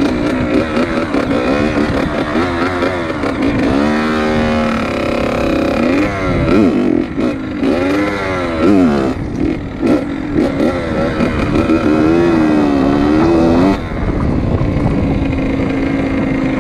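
Dirt bike engine heard from the rider's seat, revving up and down over and over as the bike is ridden, its pitch rising and falling every second or two. About fourteen seconds in it drops back to a steady low idle.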